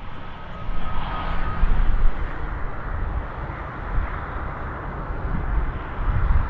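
Airbus A320-200 jet engines at takeoff power, a steady rumble, with a faint thin whine in the first second or so.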